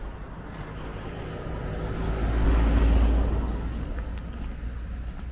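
Motor vehicle rumble, swelling to its loudest about halfway through and then easing off.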